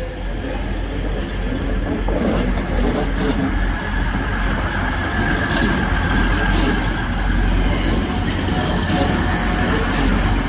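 Grand Central Class 180 diesel multiple unit running past along the platform: diesel engine and wheels on the rails, growing louder over the first couple of seconds as it comes alongside. A thin steady high whine sounds from about four seconds in until about eight seconds.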